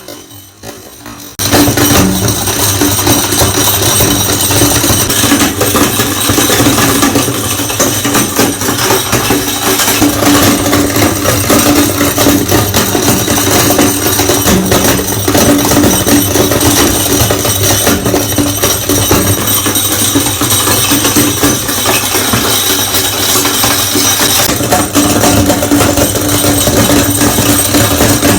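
Electric meat grinder switching on about a second in and running with a steady motor hum, glass marbles clattering and rattling hard inside it.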